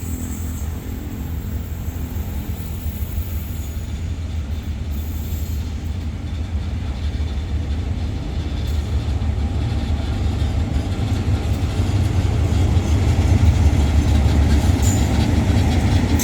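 Hitachi diesel-electric locomotive and its train coming in, a deep low rumble that grows steadily louder.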